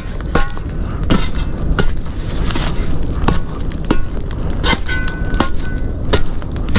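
Wood fire in a steel fire pit crackling and popping with sharp snaps at irregular intervals, as the burning logs are stirred with a metal poker.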